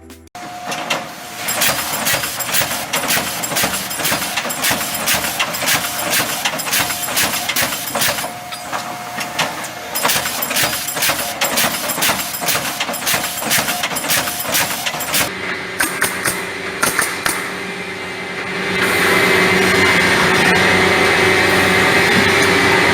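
Automated pallet nailing machine running, its pneumatic nail guns firing in a rapid clatter of sharp knocks. About 15 s in the clatter gives way to a steadier, louder machine noise.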